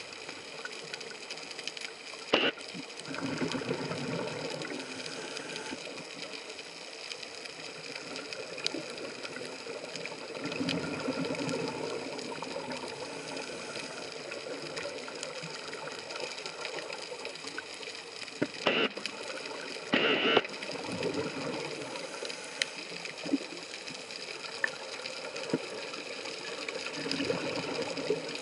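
Scuba diver's regulator heard underwater through the camera housing: a bubbling exhalation about every seven seconds, over a steady mechanical hum of several tones, with a few sharp clicks.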